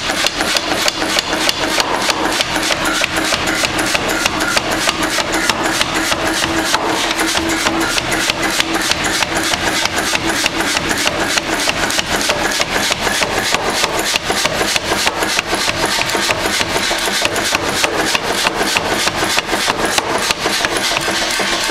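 Power hammer forging a glowing-hot iron bar, its ram striking the bar on the die in a long, even run of rapid blows, about four a second.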